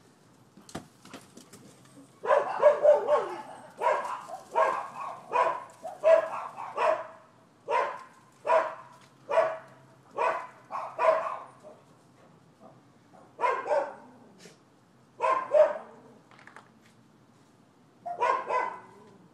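Dogs barking repeatedly: a quick flurry of barks about two seconds in, then single barks at roughly one a second, and after a short pause, a few more widely spaced barks near the end.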